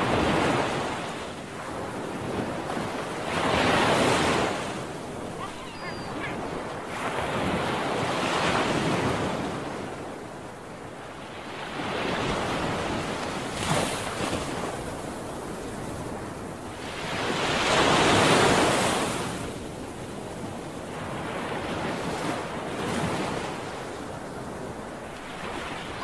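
Waves washing in and out with wind, rising and fading in slow swells about every four to five seconds.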